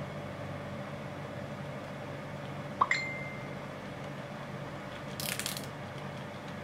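Handling of a plastic Revoltech action figure as its leg joints are worked: one sharp click with a short ringing ping about three seconds in, and a brief rustle a couple of seconds later, over a steady hum.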